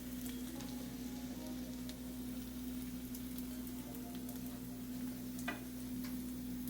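French toast slices frying in oil in a pan: a steady sizzle with fine scattered crackles, over a steady low hum. One louder click near the end.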